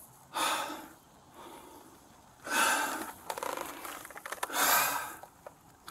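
Heavy, labored breathing of a wounded man: three loud gasping breaths about two seconds apart, with a run of light clicks between the second and third.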